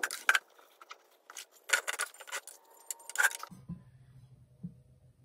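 A brush knocking and scraping inside a plastic bucket of dish-soap tire lube: a run of sharp clatters and scrapes that stops abruptly about three and a half seconds in. A faint low steady hum follows.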